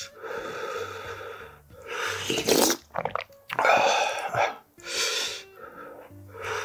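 A man eating spicy seafood ramen: noodles slurped in several loud bursts, with chewing and sharp breaths between mouthfuls.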